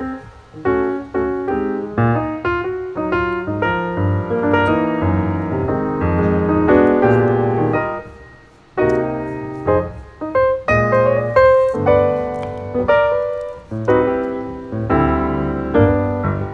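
Background piano music, a steady stream of struck notes, with a brief pause about eight seconds in.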